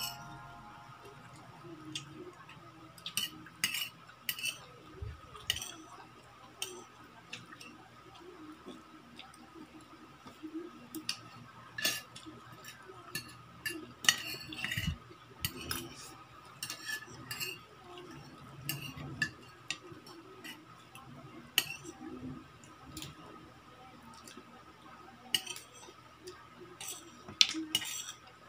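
Metal spoon and fork scraping and clinking against a ceramic plate while scooping up rice, in short, irregular strokes with quieter pauses between.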